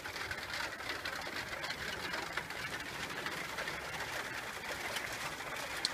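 Steady rain falling, a dense even patter of drops with no thunder.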